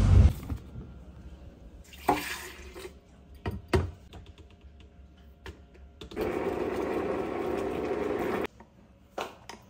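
Liquid pouring into a plastic blender jar, a steady splashing for about two seconds that cuts off suddenly, with a few light knocks and clicks of containers before it.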